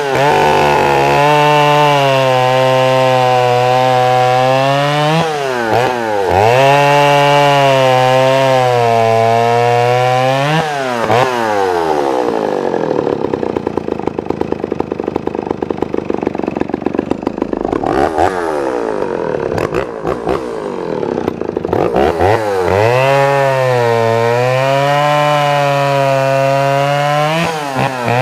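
Vintage Dolmar CA two-stroke chainsaw engine running, revved high with brief dips. In the middle it falls back to a slow, uneven idle for about ten seconds, then is revved up again near the end.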